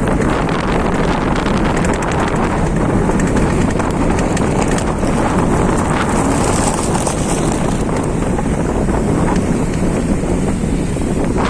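Wind buffeting the microphone: a steady, loud low rumble of noise with no tone or rhythm.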